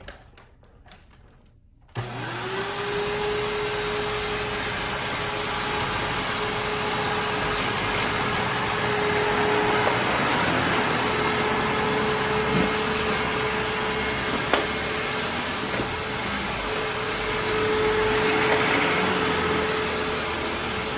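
Hoover Turbopower 7500 self-propelled WindTunnel upright vacuum cleaner switched on about two seconds in: its motor spins up quickly to a steady whine and runs with a loud rush of air. A couple of brief sharp ticks come partway through.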